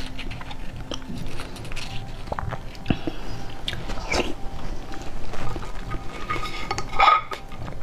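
Close-miked eating sounds: a spoon scraping raw sea urchin roe out of the spiny shell, then soft wet mouth sounds and chewing of the roe, with scattered small clicks.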